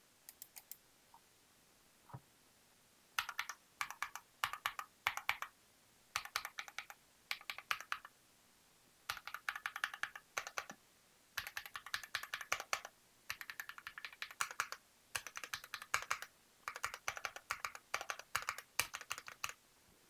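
Keychron Q0 mechanical numpad, an aluminium-cased board, being typed on in quick runs of key presses a second or two long with short pauses between, as a sound test of the switches and keycaps. A few soft clicks come right at the start, before the typing begins.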